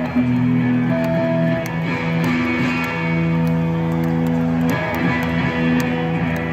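Live electric guitars holding long, sustained notes at loud arena volume, heard from the audience, with a single higher note ringing out about a second in.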